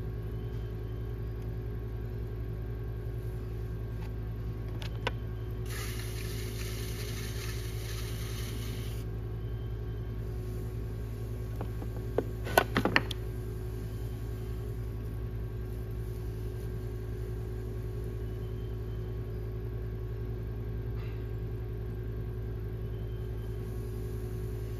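Steady low machine hum with a faint higher tone. A hiss about six seconds in lasts roughly three seconds, and a few sharp clicks come about twelve seconds in.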